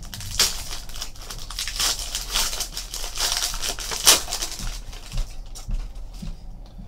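A foil trading-card pack wrapper crinkling and crackling as it is torn open by hand, with the sharpest crackle about four seconds in. After that come quieter rustles as the cards are handled.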